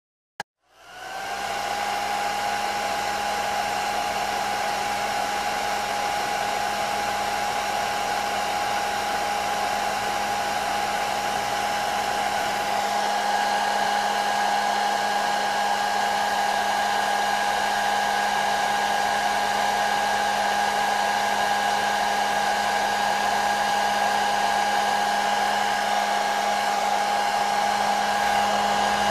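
Handheld hair dryer starting with a click and spinning up within about a second, then running steadily: rushing air with a constant whine and a low hum.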